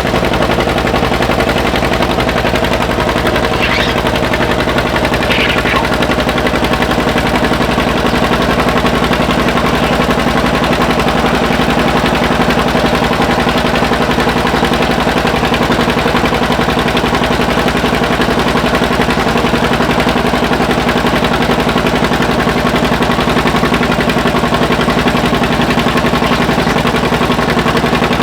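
Tractor engine running loudly and steadily, with a fast, even exhaust beat.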